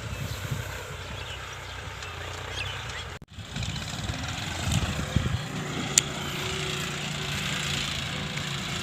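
John Deere 5050D tractor's diesel engine running steadily while ploughing. The sound cuts out for an instant about three seconds in, and a single sharp click comes about six seconds in.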